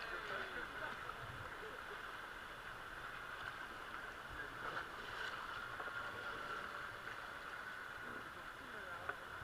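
Steady rush of river water, with faint voices near the start and again near the end.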